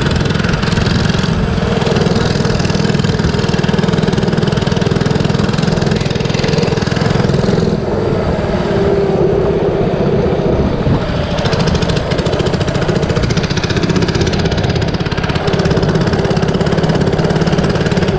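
97cc Baja mini bike's small single-cylinder engine running under way, with a steady drone that rises and falls a little as the throttle changes.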